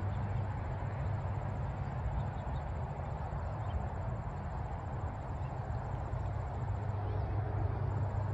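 Steady low open-air rumble with a faint, even, high-pitched insect trill running over it; the trill drops out briefly near the end.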